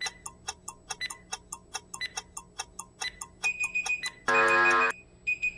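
Workout interval timer's countdown effect: clock ticking fast, about five ticks a second, with a steady beeping joining about three and a half seconds in, then a loud buzzer lasting about half a second as the countdown runs out, marking the end of the set.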